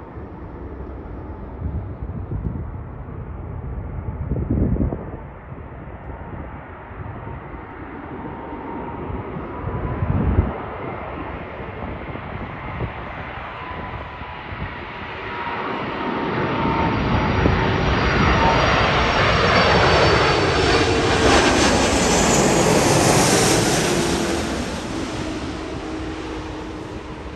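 Airbus A330 twin-jet airliner on landing approach, its engine noise building as it passes low overhead, with a high engine whine and tones that drop in pitch as it goes by. Two gusts of wind hit the microphone around five and ten seconds in.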